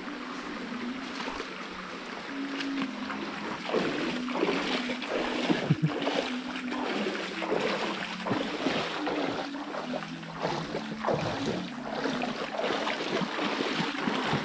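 Footsteps splashing and wading through a shallow, rocky stream, with water sloshing at each step; the splashing grows louder and more frequent from about four seconds in.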